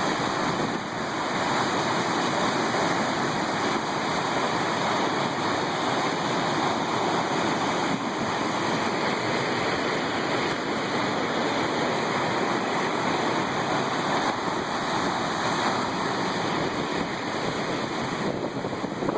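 Large storm waves on Lake Superior surging and breaking against the shore, a steady rush of surf.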